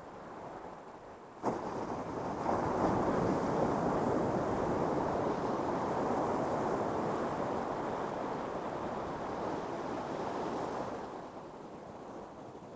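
Ocean surf: a wave breaks suddenly about a second and a half in, and its rushing wash holds for several seconds before fading near the end.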